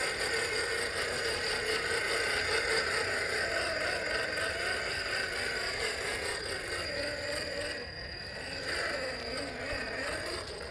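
Brushed 550-size electric motor and geared drivetrain of a 1/10-scale SCX10-style RC rock crawler whirring steadily as it crawls over rocks and through shallow muddy water, easing off briefly near the end.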